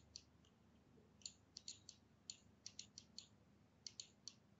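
Faint, irregular clicks of a computer mouse and keyboard, about a dozen spread across a few seconds, against near silence.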